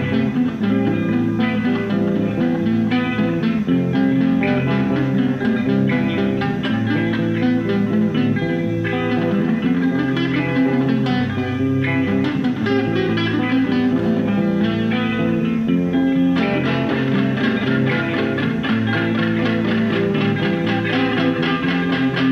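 Electric guitar being played, a continuous run of sustained plucked notes. The tone turns brighter about sixteen seconds in.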